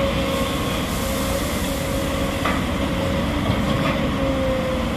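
SANY crawler excavator's diesel engine and hydraulics running steadily under load, with a faint steady whine, as its bucket digs into a stockpile of crushed stone.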